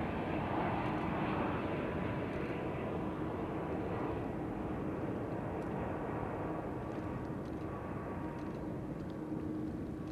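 Twin jet engines of a Boeing 767-300ER airliner on landing approach: a steady jet noise with a faint hum of engine tones. It slowly fades and grows duller as the plane flies away.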